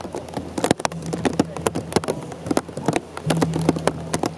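Heavy rain striking an umbrella: a dense run of sharp, irregular taps. A steady low hum starts about a second in and breaks off briefly near the three-second mark.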